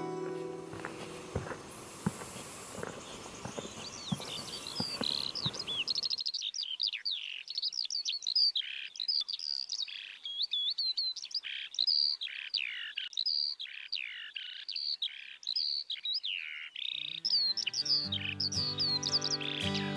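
Footsteps on a stony path for the first several seconds, then a songbird singing a fast run of chirps and down-slurred notes.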